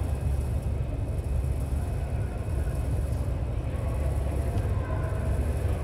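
Steady low rumble of a large indoor sports hall, with faint, distant voices of players on the pitch about two-thirds of the way in.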